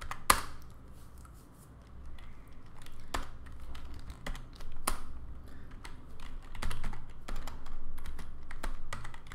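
Typing on a computer keyboard: one sharp keystroke about a third of a second in, then scattered keystrokes, turning into quicker, denser typing from about six and a half seconds on.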